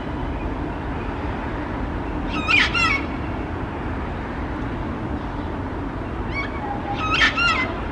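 Sulphur-crested cockatoo giving short, wavering, cute-sounding calls in two brief bouts, about two and a half seconds in and again near the end, over a steady low background rumble.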